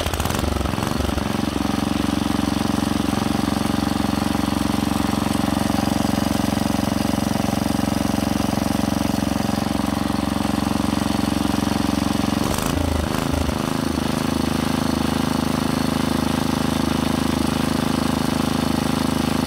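Rebuilt Clinton B1290 single-cylinder small engine revving up about a second in and running steadily at high speed, with a brief waver in speed about two-thirds through before it settles again. It is being tested at high throttle after a little fuel was taken out of the carburetor's fast-idle setting to stop it hunting.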